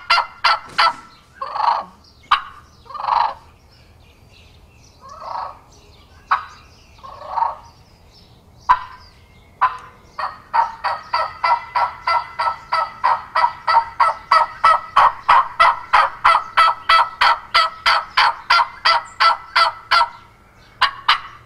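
Turkey mouth call (diaphragm call) imitating a wild turkey, at times blown into a Corian-and-walnut amplifier tube. A few slower, separate notes and two sharp clicks lead into a long run of quick, evenly spaced notes, about four or five a second, that stops about a second before the end.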